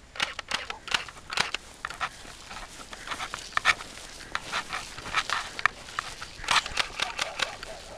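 Quick footsteps crunching and rustling through vegetation, an irregular run of short, sharp crackles, several a second.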